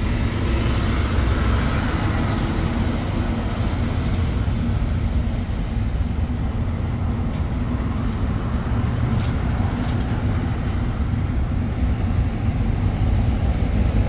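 Steady low rumble of slow-moving highway traffic, heard from a car, with a car-carrier truck close alongside.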